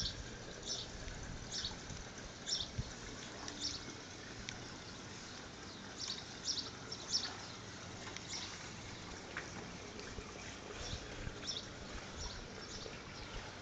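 Outdoor ambience of small birds giving short, high chirps, repeated irregularly every half second to a second, over a faint steady hiss.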